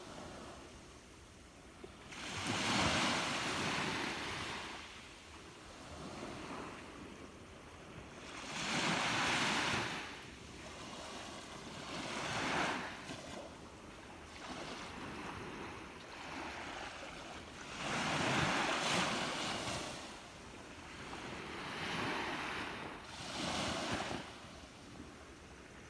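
Sea waves breaking and washing on the shore, each surge swelling and falling away every few seconds, with the loudest breakers about 3, 9 and 19 seconds in.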